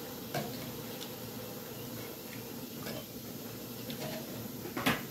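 Knife and fork cutting steak on a metal serving pan: a few faint clicks and scrapes of cutlery, then a sharper clatter near the end.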